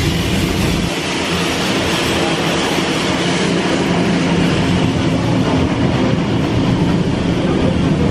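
Two steam-hauled heritage trains running side by side at speed: a steady rumble and clatter of carriage wheels on the rails, heard from inside a moving carriage as the other locomotive and its carriages pass on the next track.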